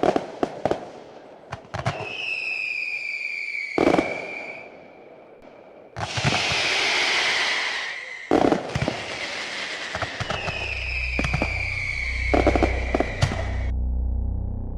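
Fireworks going off: several whistling rockets, each a long whistle that slowly falls in pitch, with sharp bangs and crackling between them. Low, pulsing music comes in about two-thirds of the way through.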